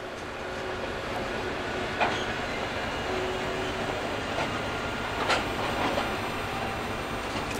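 Freight train wagons rolling along the track, a steady rumble with a few sharp clacks of wheels over the rails.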